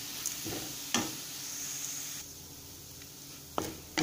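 Onions and ground peanut masala powder sizzling in hot oil in a kadai, with a few sharp knocks of the stirring spatula against the pan. The sizzle quietens a little about halfway through.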